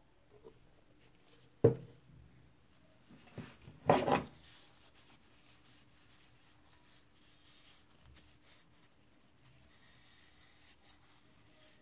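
Cloth rubbing oil into a beech wood draw-knife handle: faint, soft rubbing. A sharp knock comes about a second and a half in, and a louder short clatter around four seconds in.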